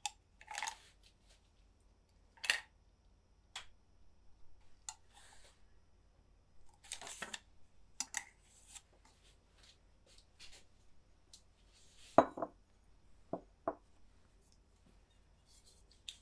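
Bar spoon stirring and rattling ice cubes in a glass highball tumbler: scattered clinks of ice against glass and spoon, with one louder knock about twelve seconds in followed by two sharp clicks.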